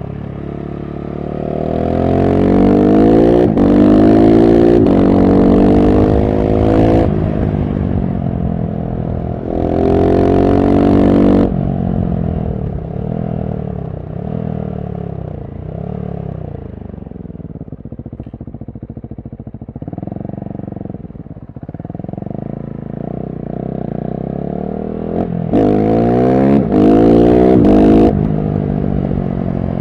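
KTM SMC-R 690's single-cylinder engine through a LeoVince One Evo slip-on exhaust, accelerating hard up through the gears with the revs climbing and dropping at each shift. About twelve seconds in it rolls off, and the revs rise and fall lower for several seconds. It pulls hard again near the end.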